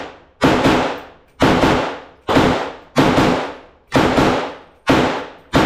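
Gunshots fired in a steady string, seven shots a little under a second apart, each a sharp crack with a quick echo that dies away within half a second.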